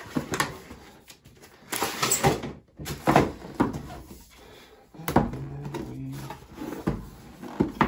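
Cardboard graphics-card packaging being handled: a scraping slide of cardboard on cardboard about two seconds in, with irregular light knocks and taps as the black inner box is set on a desk and handled.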